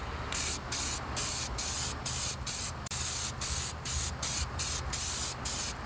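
Aerosol spray can of primer hissing in short bursts, about two a second, as it coats bare steel.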